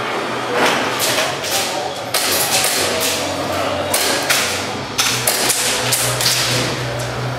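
Airsoft gunfire during close-quarters play: irregular sharp cracks and thuds, about a dozen, with BBs striking walls and surfaces, over a steady low hum.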